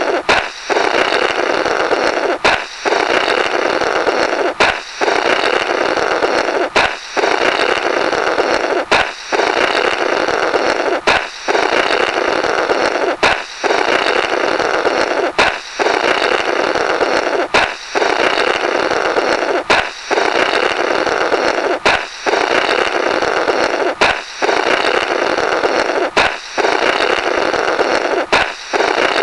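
Comic "blorrrt" balloon-break sound effect repeating about every two seconds, some fourteen times: a sharp balloon pop, then about two seconds of noisy blowing through the burst balloon's remnants, cut off by the next pop.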